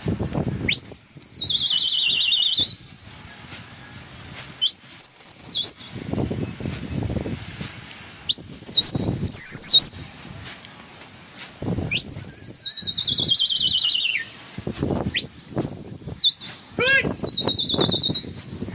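A pigeon keeper whistles loudly at a flock of gola pigeons in flight, about seven shrill whistles with gaps between them. Some slide up and then warble downward for a couple of seconds, and others are short and held level; the last is preceded by a quick run of rising chirps.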